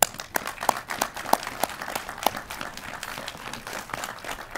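Audience applauding, a crowd clapping, with a few louder single claps standing out in the first couple of seconds before it settles into a steadier patter.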